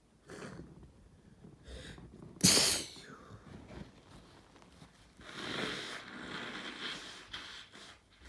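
A person sneezing: two quick breaths in, then one sharp, loud sneeze about two and a half seconds in. About five seconds in comes a long nose blow lasting roughly three seconds.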